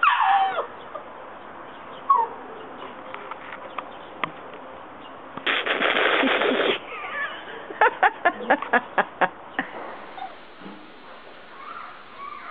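A Labrador retriever puppy gives a high yelp falling in pitch at the start and a short whine about two seconds in. About midway there is a burst of noise lasting about a second, then a quick run of sharp knocks or taps.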